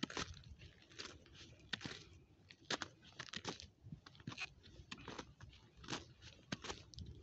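Footsteps crunching on frozen snow and icy gravel of a mountain trail, one crunchy step about every three quarters of a second at a steady walking pace.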